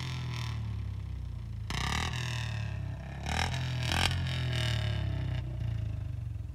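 Royal Enfield Bullet 350's single-cylinder engine running through a freshly fitted aftermarket C-bend pipe and silencer, revved twice: about two seconds in and again around three and a half seconds.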